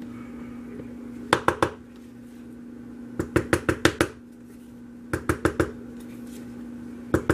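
A spatula tapping to knock off cold-process soap batter, in four quick runs of three to six sharp taps, the last still going at the end, over a steady low hum.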